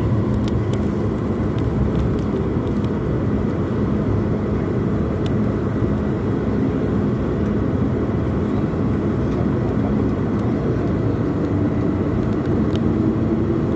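Steady jet engine drone heard inside the cabin of an airliner taxiing, with a tone that rises in pitch over the last few seconds.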